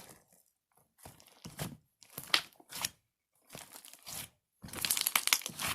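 Slime with shaving cream being kneaded and squeezed by hand: wet crackling and squishing in irregular bursts with short pauses between, loudest near the end.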